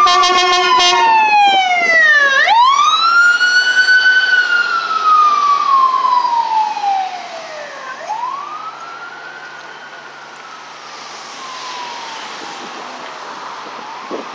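Emergency ambulance siren: a run of short horn blasts in the first second, then a slow wail rising and falling in pitch, fading as the ambulance drives away.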